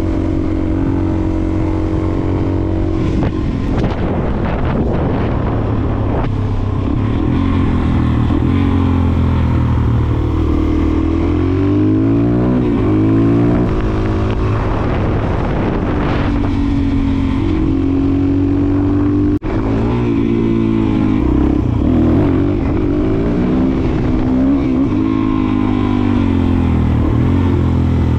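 Motorcycle engine running under way, heard from a camera on the bike, its pitch rising and falling several times as the rider speeds up and eases off. There is a brief dropout about 19 seconds in.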